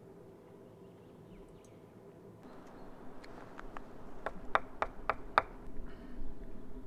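Close handling and movement noises: a quick run of sharp clicks and snaps, about four a second, with a soft rustle before them, over a steady low background.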